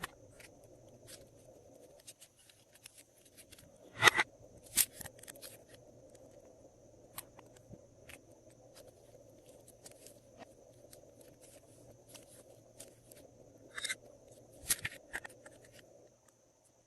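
Glossy slime being worked by hand, giving sharp sticky clicks and pops with faint crackling between them. The loudest clicks come about four seconds in and again near the end, over a faint steady hum.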